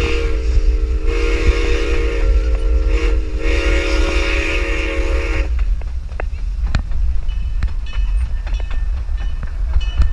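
A narrow gauge steam locomotive's chime whistle sounding three blasts, the last cutting off about halfway through, ahead of a road crossing. After that the train's wheels rumble along the rails with scattered sharp clicks over the rail joints, and wind rumbles on the microphone in the open car.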